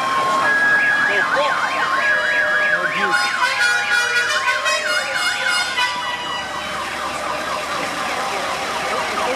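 Sirens: a two-tone siren alternating high and low, overlaid for about the first six seconds by a second siren sweeping quickly up and down, with a horn blaring from about three to six seconds in.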